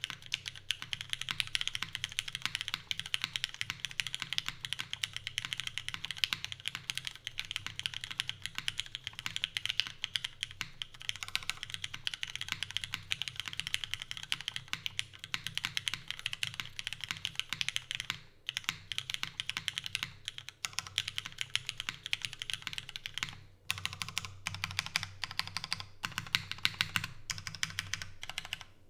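Fast, continuous typing on a Glare TKL mechanical keyboard fitted with lubed and filmed Cherry MX Black linear switches in a full aluminium plate with no dampening foam. The keystrokes run in a dense stream, with brief pauses about 18 seconds and 23 seconds in.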